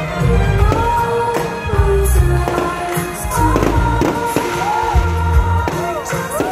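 Loud music with singing and a heavy pulsing bass beat, with repeated firework bangs going off through it.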